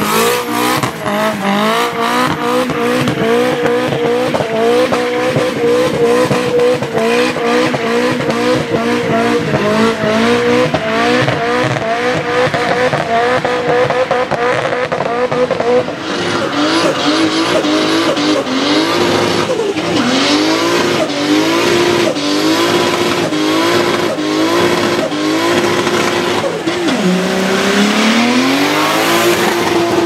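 Nissan 180SX engine held at a steady high pitch with a rapid stutter, its rear tyres spinning and squealing in a burnout. About 16 seconds in it gives way to a Volvo 940 burnout: the engine is revved in repeated surges roughly every second and a half, dips low near the end and climbs back up.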